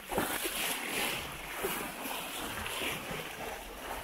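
Water rushing and splashing along the hull of a sailing yacht under sail, the bow wave swelling and falling irregularly.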